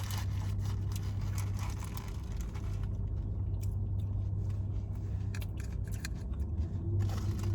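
Close-miked chewing and biting, with scattered short crunches and mouth clicks, over a steady low hum inside a car.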